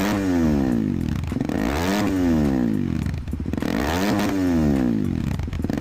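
Kawasaki KLX 230 SE's 233 cc single-cylinder engine revved in light throttle blips through an Over Racing aftermarket racing exhaust. The revs rise and fall about every two seconds, three times, with a deep, bassy exhaust note.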